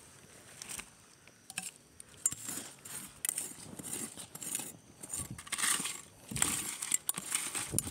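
Metal spoon scraping through soil and clinking against rock in short, irregular strokes while digging out mushrooms.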